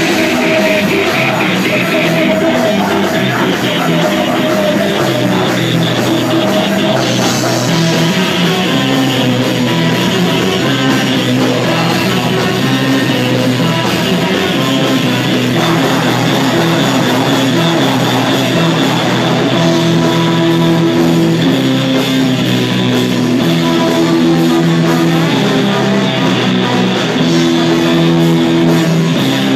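Live ska-punk band playing loud: electric guitar, bass, drums and trombone, with a singer.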